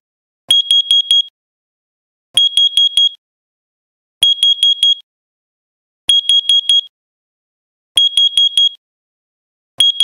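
Code One battery-operated carbon monoxide alarm going off: loud, high-pitched beeps in groups of four, a new group about every two seconds. The four-beep pattern is the carbon-monoxide alarm signal.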